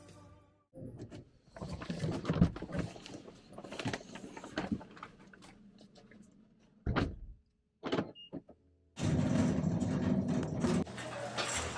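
Clicks and rustling inside a car as a seatbelt is unbuckled and someone climbs out of the seat, then two short knocks near the middle, the second with a brief high beep. About nine seconds in, a dense steady background noise takes over.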